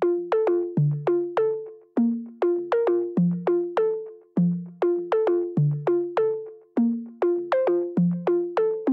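Background music: a light electronic tune of short plucked synthesizer notes, each fading quickly, in a simple bouncing melody.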